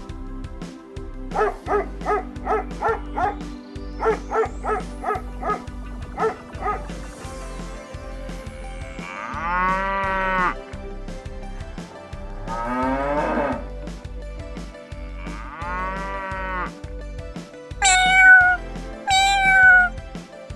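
Cow mooing three times, long calls of about a second each, over background music with a steady beat. Earlier comes a quick run of short repeated calls, and near the end two cat meows.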